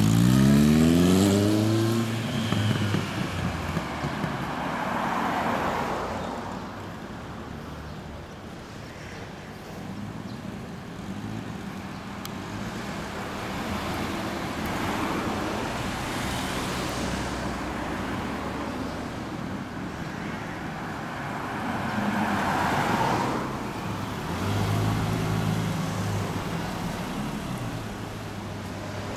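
Kawasaki Zephyr 1100's air-cooled inline-four with a Kerker aftermarket exhaust accelerating away, its revs rising over the first couple of seconds. Then general street traffic noise, with steady engine idling near the end.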